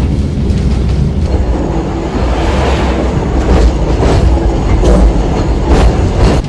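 A 120-year-old open electric tram car of the Sintra line running on its track: a steady heavy rumble and rattle, with a few sharp knocks from the wheels on the rails.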